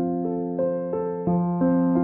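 Background music: a gentle piano-like keyboard picking out notes about three times a second over a held low note.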